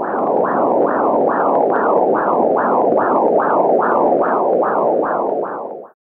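Fetal blood flow heard through a BabyBeat fetal Doppler: a whooshing pulse about two and a half beats a second, much faster than the mother's pulse. Each beat rises sharply in pitch and falls away. It cuts off near the end.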